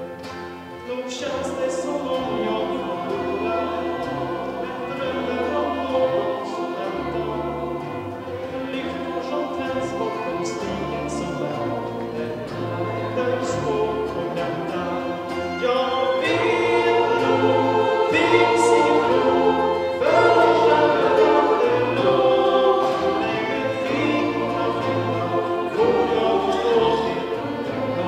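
Mixed choir singing in parts, with low held notes underneath. The singing grows louder about halfway through.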